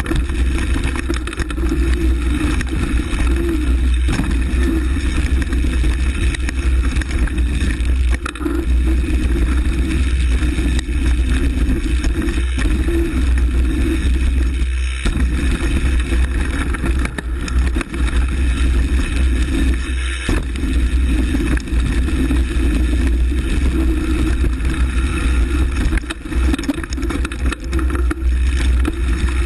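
Steady wind rumble on the camera microphone with the rolling and rattling of a mountain bike riding a dirt forest trail, and now and then short knocks over bumps.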